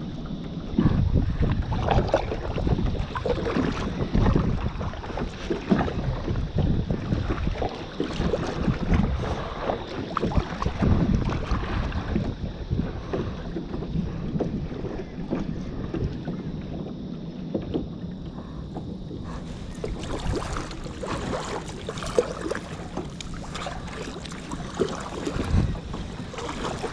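Water splashing and sloshing around a kayak in irregular bursts, with wind buffeting the microphone.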